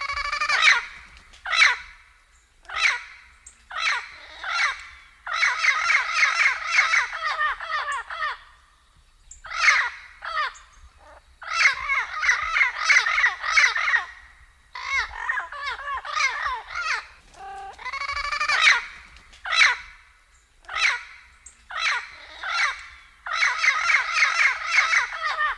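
Blue-fronted amazon parrot calling. Short single calls with pauses between them alternate with longer runs of rapidly repeated notes, each run lasting two to three seconds.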